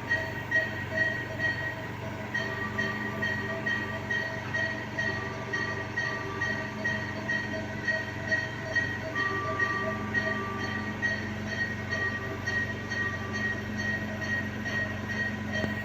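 Neonatal ICU equipment: a patient monitor beeping rapidly and regularly, about two to three beeps a second, over the steady hum of a ventilator/CPAP machine, with a longer tone sounding now and then.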